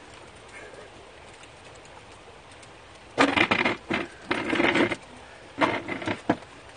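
Steady rain patter, broken about three seconds in by two loud bursts of rapid clattering, the first nearly two seconds long and the second under a second.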